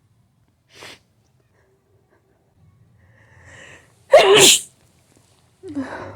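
A person sneezing hard in a hay fever allergy fit. A short breath just under a second in and a quieter drawn-in build-up lead into one loud sneeze about four seconds in. A shorter second burst follows near the end.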